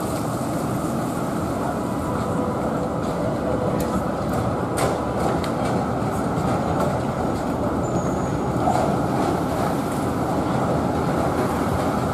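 Melbourne trams running on wet street track, with road traffic: a steady rumble and hiss. A few sharp clicks come around four to five seconds in.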